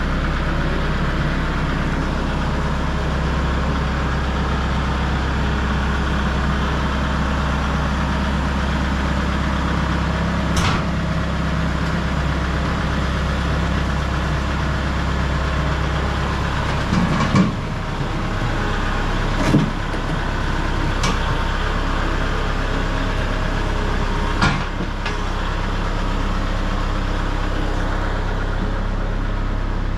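An engine idling steadily with a low hum, a few short knocks over it. The hum changes a little past halfway through.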